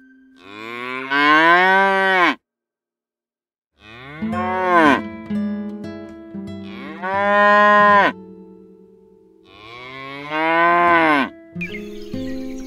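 A cow mooing: four long moos, each rising in pitch at the start and falling away at the end.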